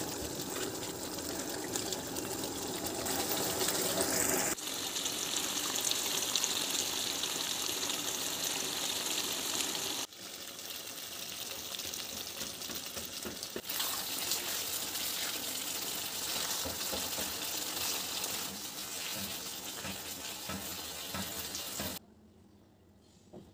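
Koi fish curry bubbling and sizzling as it simmers in a pan, a steady hiss with a few abrupt cuts. It stops suddenly near the end.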